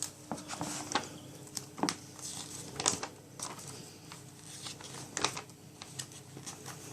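Paper being handled: the pages of an instruction manual rustling and turning, with scattered light clicks and crinkles.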